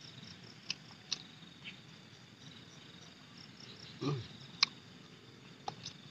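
Quiet eating sounds: soft mouth clicks and lip smacks as grilled paddy-frog meat is nibbled off its small bones, with a brief low hum about four seconds in. Faint high insect chirping runs underneath.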